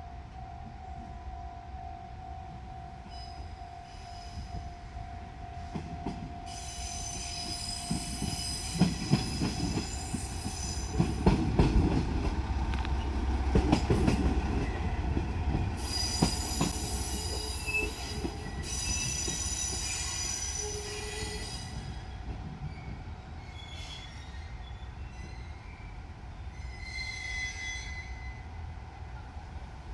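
Diesel railcar rolling slowly past over a level crossing, its wheels squealing shrilly in two spells of a few seconds each, with clicking of wheels over rail joints and a low rumble loudest near the middle. A steady warning tone from the crossing stops about four seconds in.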